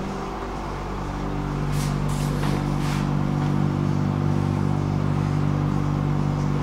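Inside an electric tram slowing to a halt at a stop: the steady electric hum of its motors and equipment over a low rumble, with a few short hisses about two to three seconds in.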